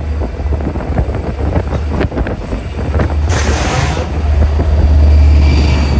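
Long Island Rail Road diesel train of bilevel coaches passing close by, its wheels clicking over the rail joints above a steady low rumble. A brief burst of hiss comes about three seconds in, and the rumble grows louder near the end as the diesel locomotive draws alongside.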